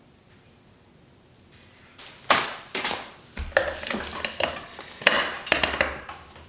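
Hard parts being handled and set down, with sharp knocks and clatters several times a second starting about two seconds in. These are the pit bike's front axle and wheel hardware being readied for fitting.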